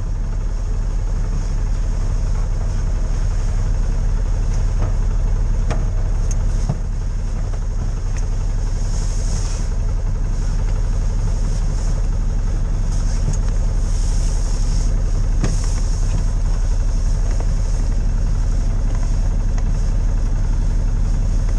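Side-by-side UTV engine idling steadily while the vehicle sits stationary.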